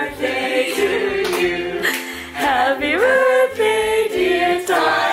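A group of people singing a song together, their voices held on long, gliding notes.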